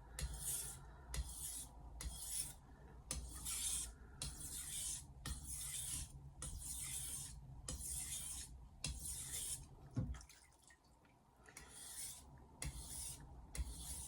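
Blade of a 210 mm Misono Japanese knife being stroked back and forth over a wet whetstone, a steady run of short gritty hissing strokes. The strokes stop for about two seconds near the ten-second mark, then start again.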